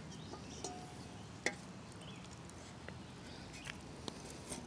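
Quiet background with a few faint, scattered clicks and taps, one sharper tap about a second and a half in.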